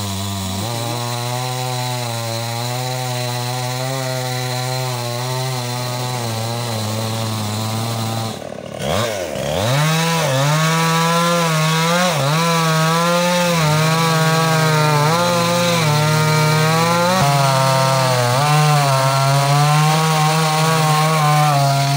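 Petrol chainsaw engine running loudly at a steady speed. About eight seconds in it drops briefly and picks up again, then runs faster with its pitch wavering as it works under load cutting into a tree.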